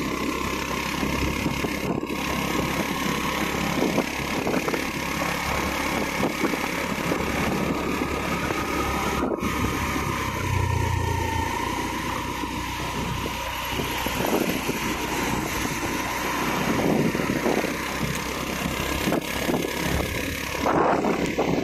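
Motorcycle engine running steadily while riding, mixed with wind rush and road noise. Two very brief gaps break the sound.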